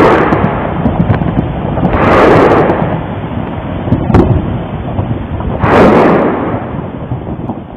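Taal volcano's phreatic eruption rumbling, with heavy booming surges of noise about every two seconds and a sharp crack about four seconds in.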